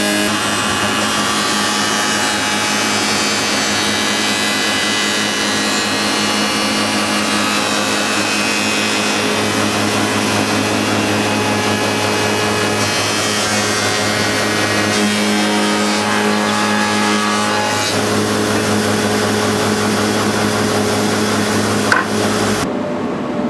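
Spindle moulder running with a rebate cutter block, cutting a rebate into a curved timber sill as it is fed past the cutter: a steady machine hum under loud cutting noise. The cutting noise drops away near the end.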